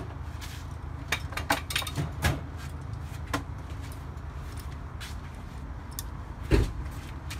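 Metal tool chest drawer being opened and rummaged through, tools clinking and rattling together, then a single loud thump near the end.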